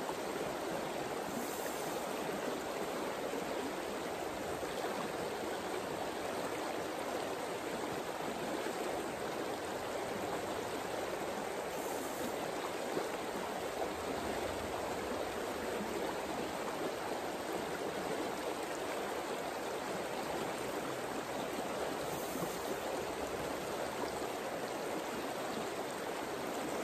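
Shallow river flowing, a steady, even rush of water.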